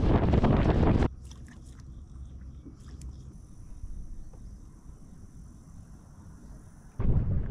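Wind rushing loudly over the microphone on a bass boat running at speed, cut off sharply about a second in. A quiet stretch follows with a few faint clicks and a thin, steady high whine, and the loud wind rush comes back near the end.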